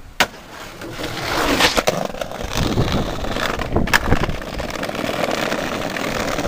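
Skateboard wheels rolling over brick block paving with a steady rumble, broken by several sharp clacks of the board, about two seconds in and again near four seconds.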